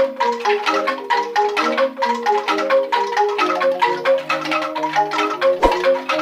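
A set of newly made bamboo angklung being shaken, playing a running melody of short pitched notes, each carried by a fast rattle of the bamboo tubes. A single low thump sounds near the end.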